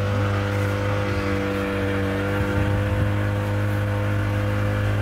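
Tour boat's engine running steadily under way: a constant low drone that holds one even pitch throughout, heard from on board.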